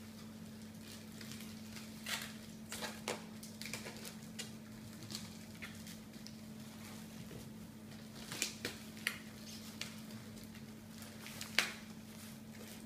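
Thin plastic grocery bags rustling and crinkling in short, irregular bursts, loudest about two seconds in, around eight to nine seconds, and once sharply near the end. A steady low hum lies under it.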